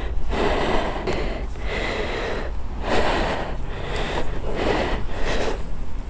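A person breathing close to the microphone: a run of breaths, about one a second, over a low rumble.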